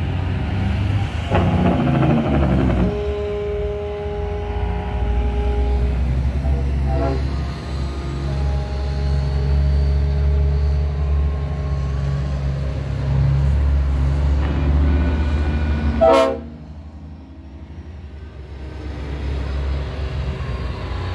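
Diesel semi trucks rumbling past with air horns sounding in several held blasts. A short, loud horn blast comes about sixteen seconds in, after which the engine noise drops for a few seconds before the next truck's rumble builds up.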